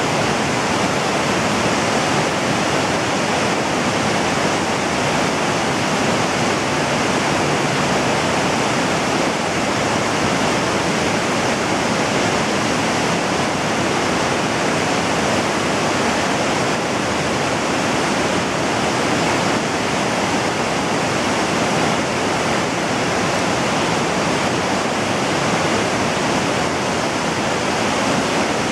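Steady rush of a fast river's whitewater, with no change in loudness and no distinct events.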